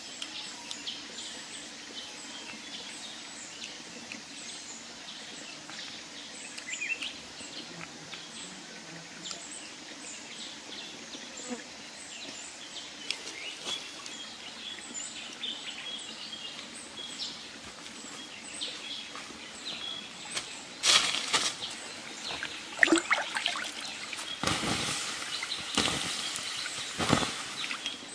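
Outdoor forest ambience with small birds chirping repeatedly over a steady background hiss. A run of louder noises across most of the range fills the last several seconds.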